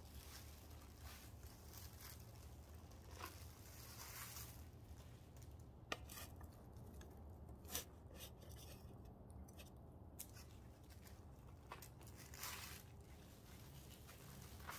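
Faint crumbling and scraping of potting soil as fingers loosen and shake it from a root-bound foxglove's root ball, in short irregular rustles, with two sharp ticks in the middle.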